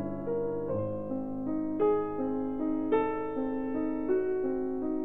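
Background piano music: slow, gentle notes and chords, a new one struck about every second and left to ring.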